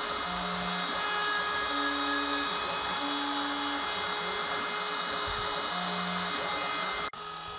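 CNC router spindle running steadily as its bit carves lettering into a pine sign under a paint mask, with short low hums coming and going four times. Just before the end the sound drops abruptly quieter.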